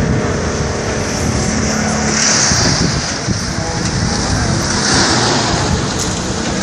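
Wind gusting across the microphone, swelling and fading, with a steady engine running under it for the first two seconds.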